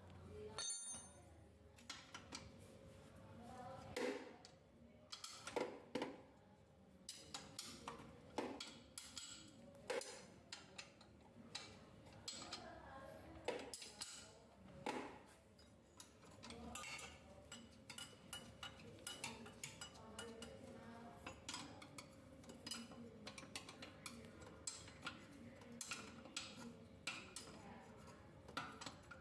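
Scattered light clinks and taps of hard objects, metal-like, being handled and set down, irregular and with no rhythm, over a faint steady hum.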